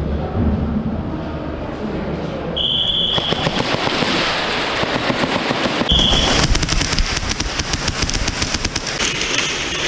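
Airsoft guns firing in rapid bursts, a dense crackle of shots that thickens from about three seconds in, with two short high beeps a few seconds apart.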